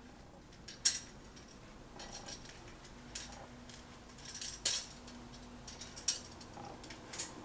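A small black wire birdcage and the plastic bird skeleton inside it being handled: several separate sharp clicks and clinks of the wire bars and the skeleton knocking together, about a second apart.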